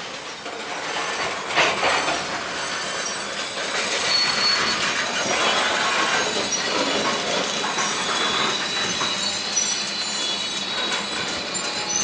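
A long string of loaded covered hopper cars rolling past, with a steady rumble from the wheels and a few clanks. Thin, high wheel squeals come and go from about four seconds in.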